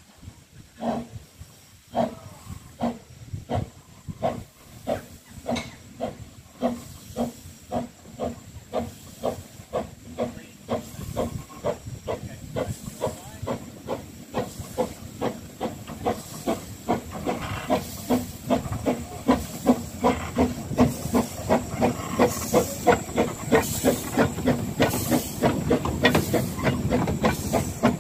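Narrow-gauge steam locomotive No 7 'Tom Rolt' of the Talyllyn Railway working a train, its exhaust beats chuffing in an even rhythm with a steady steam hiss. The beats quicken from about two to about three a second and grow louder as the engine approaches.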